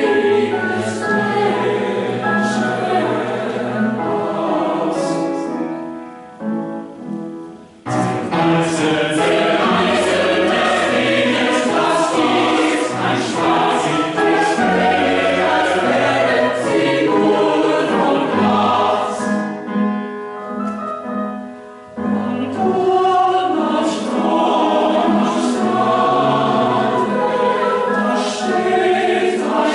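Mixed choir of men and women singing a sustained choral piece. The sound thins out twice, about six seconds and about twenty seconds in, before the next phrase enters full.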